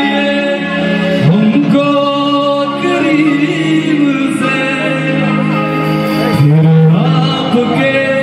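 Male singer singing a Hindi devotional song (bhajan) live into a microphone, holding long wavering notes over steady instrumental backing.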